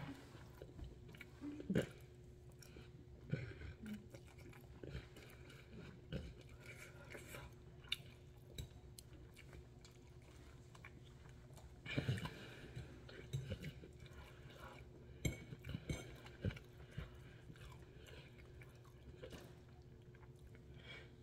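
Close-up chewing of a mouthful of soft vegetable noodles, with irregular small wet mouth noises coming and going, busiest past the middle, over a faint steady hum.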